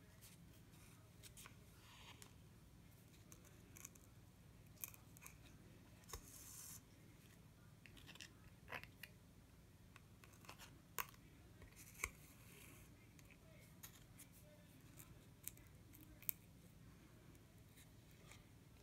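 Faint, scattered small clicks and a brief rustle of hand bead embroidery: needle and thread being worked through seed beads and the backing as the beads are tacked down.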